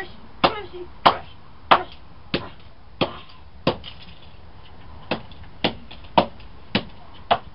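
Repeated hard blows smashing a Samsung Juke phone: about eleven sharp strikes, roughly two a second, with a short pause in the middle.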